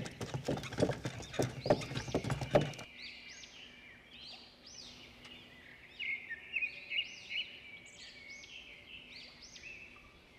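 Hooves clip-clopping at about three steps a second, the sound of a bullock cart on the move, with birds chirping. The hoofbeats stop about three seconds in, leaving a run of short bird chirps.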